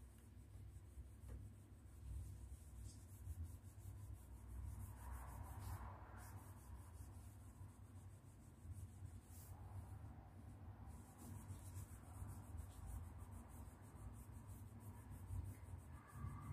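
Faint rubbing of a microfiber cloth scrubbed against a textured painted wall in quick repeated strokes, wiping off crayon marks.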